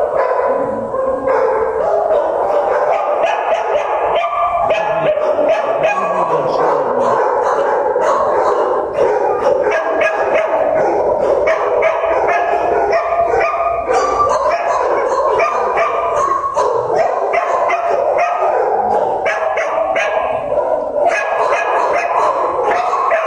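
Many shelter dogs barking and yipping at once from the kennel runs, a loud, steady din of overlapping barks with no pause.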